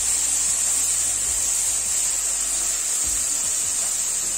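Ground mustard-and-garlic paste sizzling in hot oil in a kadai, a steady high hiss.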